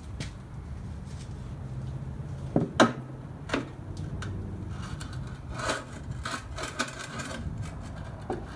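Knocks and scraping as a 12 V hydraulic power unit with a plastic reservoir is set on and pushed into place on a trailer's metal frame. There are a few sharp knocks between about two and a half and three and a half seconds in, the loudest near three seconds, then a stretch of rubbing with light clicks.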